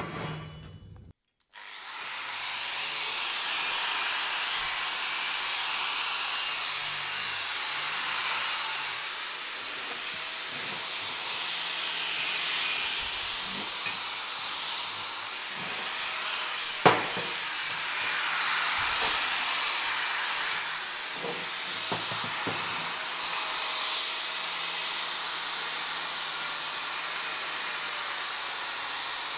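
Angle grinder cleaning up the edges of plasma-cut steel plate: a steady hiss of the disc on the metal over the motor's low hum. It starts about a second and a half in, with one sharp tick about halfway through.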